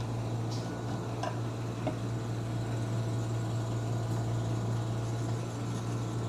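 A steady low hum, with a few faint clicks in the first couple of seconds.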